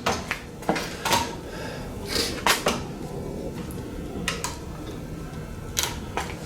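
Irregular metal clanks and knocks from hand tools and a manual tire changer while a stiff low-profile tire's bead is worked onto the wheel, a few sharp knocks clustered together and others spread out.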